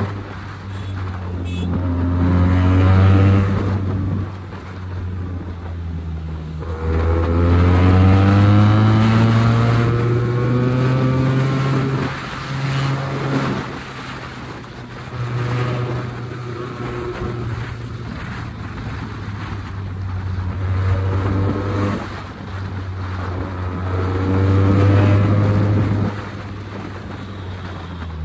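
QJ Motor SRK 400 parallel-twin motorcycle's exhaust while riding. The engine note climbs in several long pulls under throttle and drops back between them, about every four to six seconds.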